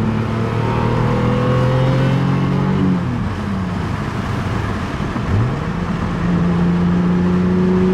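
Naturally aspirated 1JZ straight-six of a Toyota Chaser pulling under acceleration: the revs climb, fall away about three seconds in, then sweep up again and hold steady.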